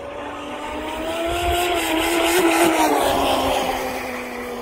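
Electric RC mono-hull speedboat running at speed with a high motor whine and a rush of spray. It gets louder and higher about a second in, is loudest around two and a half seconds, then drops in pitch and fades as it passes the bank.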